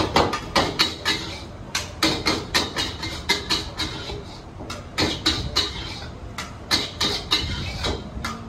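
Metal wok ladle striking and scraping a wok during stir-frying, in quick runs of clangs, several a second, with short pauses between runs.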